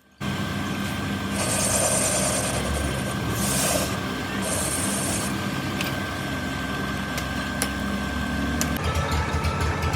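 Metal lathe running with a steady whine, with three short hissing bursts in its first half. Near the end the sound changes to a faster, pulsing rattle.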